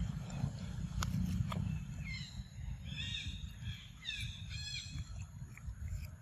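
Birds chirping, with a quick run of short chirps in the middle, over a steady low rumble.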